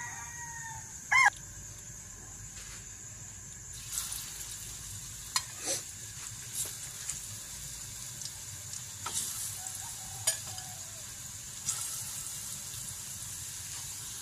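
Oil sizzling in a pan of frying bananas, a steady hiss with scattered pops and crackles that pick up about four seconds in. A chicken gives one short, loud call about a second in.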